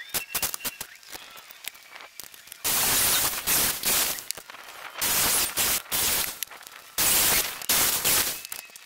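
Corded circular saw cutting through wooden posts in three loud bursts of one to two seconds each, after a few light clicks.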